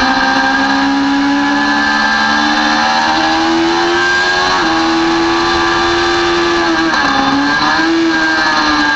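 Sport motorcycle's engine at high revs in third gear under hard acceleration, its note climbing through the middle. The note dips briefly about seven seconds in, recovers, and starts to fall right at the end. A steady rush of wind noise runs underneath.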